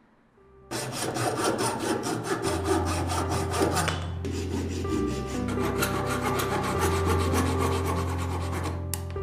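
Fine-toothed hand saw cutting through a thin wooden branch with quick, regular back-and-forth strokes, starting about a second in, with a short pause around the middle.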